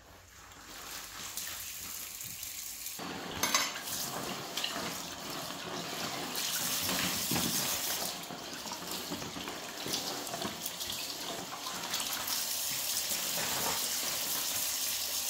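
Kitchen tap running into a sink while dishes and utensils are washed by hand, with occasional clinks and a clatter of items against the sink. The water starts faintly about a second in and runs fuller from about three seconds on.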